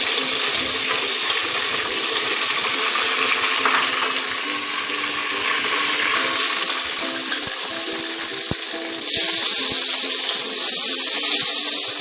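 Onions frying in hot oil in an aluminium pressure cooker pan: a steady sizzle that grows louder and brighter about nine seconds in, as the mutton goes into the hot oil.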